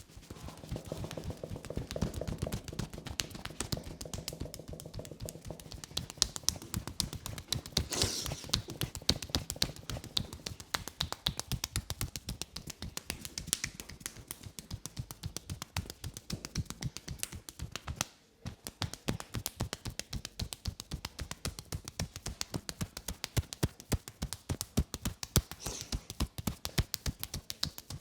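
Rapid percussive massage strokes: hands striking and slapping a person's back in a quick, steady rhythm of several strikes a second. There is a brief pause about two-thirds of the way through.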